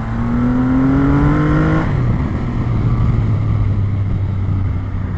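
Triumph Rocket 3R's 2,500 cc inline-three engine accelerating hard under way. Its pitch rises for nearly two seconds until a gear change drops it, then it runs on at a steadier pitch.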